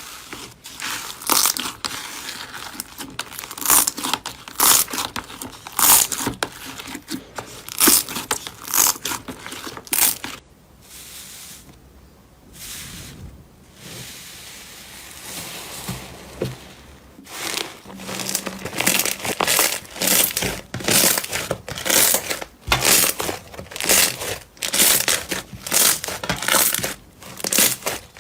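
Slime being squeezed and pressed by hand, a string of short squishing, crackly noises; they thin out for a few seconds in the middle, then come about twice a second.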